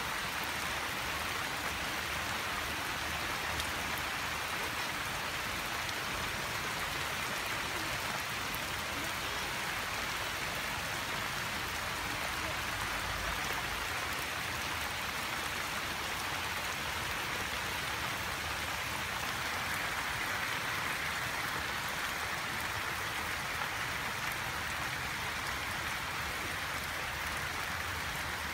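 Steady rain falling on the shallow standing water of a flooded rice paddy, an even, unbroken hiss.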